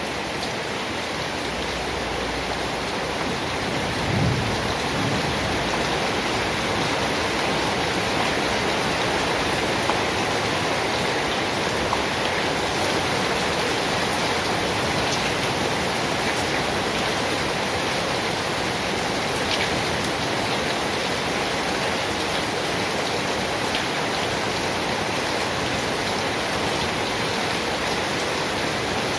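Steady rain, an even hiss that holds throughout, with a brief low rumble about four seconds in.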